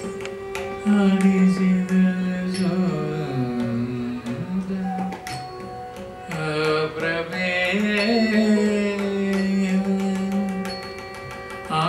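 Carnatic classical music accompanying Bharatanatyam: a sung melody with gliding, ornamented notes over a steady drone, with sharp percussive strokes scattered through it.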